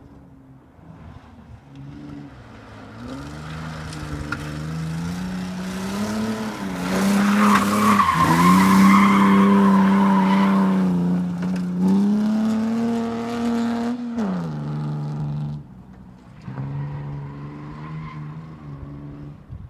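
Bilcross car engine driven hard on the track, getting louder as it comes near, with its note rising and dipping through gear changes and a rough hiss from the tyres sliding while it is loudest. Near the end the engine note drops suddenly and it runs on more quietly.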